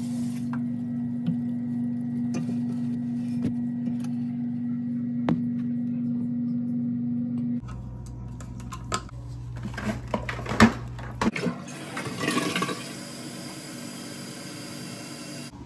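A steady hum for the first seven seconds or so. After it stops, sharp clicks and scrapes come from a screwdriver working the plastic mounting-bolt covers of a bidet toilet seat, with a brief hiss a little later.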